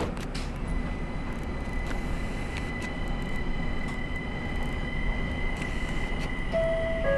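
Linimo 100-series maglev car running, heard from inside the cabin: a steady rumble with a thin high whine that comes in about a second in and grows louder. A single knock sounds at the very start, and near the end a two-tone electronic chime steps down in pitch, the signal that an onboard announcement follows.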